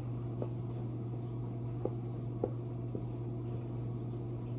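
Marker writing on a small handheld board: a few faint taps and strokes, over a steady low hum.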